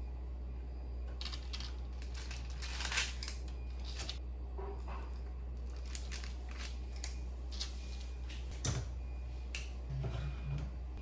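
Irregular clicks, taps and short scrapes of kitchen utensils and bowls being handled during baking, over a steady low hum.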